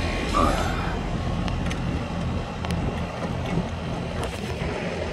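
Residential air-conditioning condensing unit running steadily while it is charged with R-410A refrigerant: a low, even hum from the compressor and condenser fan, with a few faint clicks.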